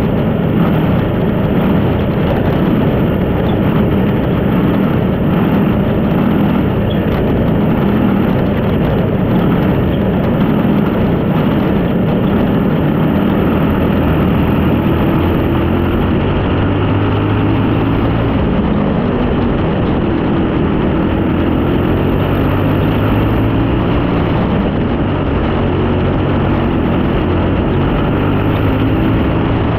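Junior sprint car's engine running hard at racing speed, heard from a camera mounted on the car, with a constant rush of wind and track noise over it. The engine's pitch rises and falls repeatedly as the car goes through the corners and down the straights.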